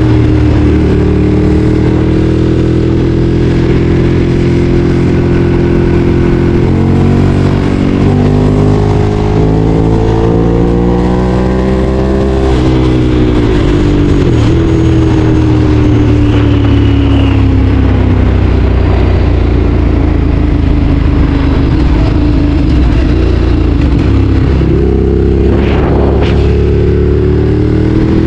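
Ducati Streetfighter 848's L-twin engine running under way. Its pitch shifts with the throttle: it steps a few times around 7 to 8 seconds in, climbs to about 12 seconds, then falls away and settles.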